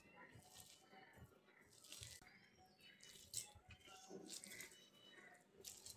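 Faint, irregular squishing and crunching of a bare hand crushing and kneading sliced raw onion with fried dried red chillies and salt in a ceramic bowl.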